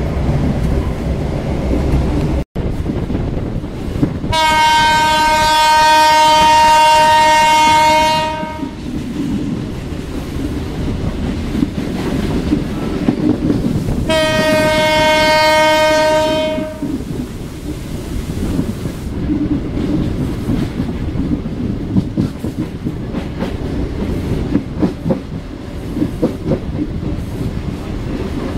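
Diesel locomotive horn heard from aboard a moving train. It gives one long blast of about four seconds, then a shorter blast of under three seconds about ten seconds later, over the steady rumble of the wheels and their clicking over the rail joints.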